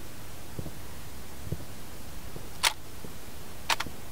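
Distant fireworks: faint low thuds of shell bursts about once a second under a steady hiss. Near the end come two sharp, loud clicks about a second apart, the second a quick double.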